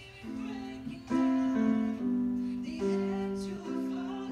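Keyboard playing in a piano voice: a slow run of held chords, a new chord about every second.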